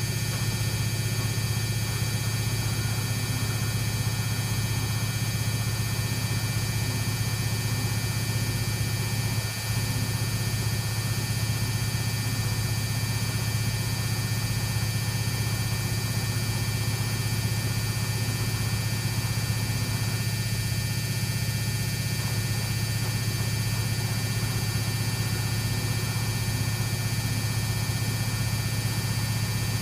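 Samsung WF6700 front-loading washing machine spinning its drum at a steady speed on its brushed AC motor: a constant low hum with a steady high whine over it, dipping briefly about a third of the way in.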